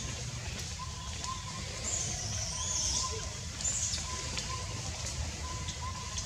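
Forest ambience with birds calling: a short piping note repeating about twice a second and a higher chirping call around the middle, over a steady low rumble.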